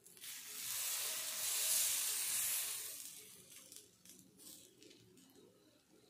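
Sizzling hiss from a hot iron tawa as thin patishapta batter cooks on it. It swells over the first two seconds and then dies away.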